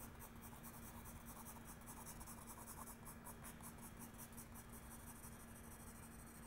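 Graphite pencil scratching faintly on drawing paper in quick, evenly repeated hatching strokes as tone is built up.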